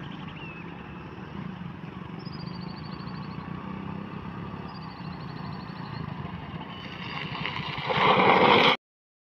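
Motorcycle engine running as the bike approaches, growing louder and then loud for its last second as it passes close, before cutting off suddenly.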